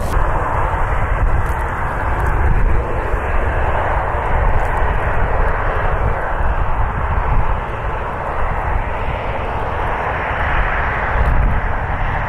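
Jet engines of a taxiing Boeing 737 running steadily at low taxi power, a continuous roar with a low rumble underneath.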